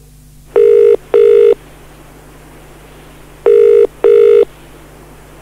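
British telephone ringing tone heard down the line as an outgoing call rings out: twice, a pair of short buzzes (the UK double-ring 'brr-brr'), about three seconds apart. A steady hiss and hum from an old cassette recording lies underneath.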